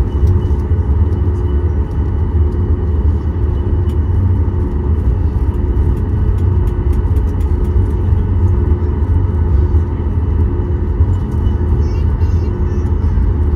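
Steady cabin noise inside a Boeing 737 MAX 8 taxiing after landing: a low rumble with a steady engine whine from its CFM LEAP-1B engines at idle.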